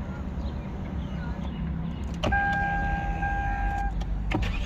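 A click, then a steady electronic beep lasting about a second and a half, over a low steady hum, and another click near the end.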